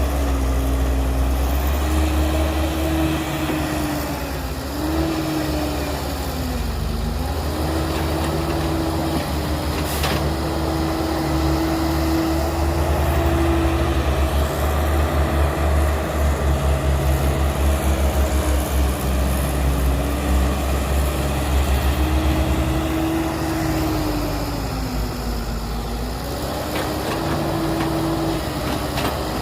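Heavy diesel engine of an earthmoving machine running with a deep rumble, its revs sagging and recovering twice. There is a single sharp knock about ten seconds in.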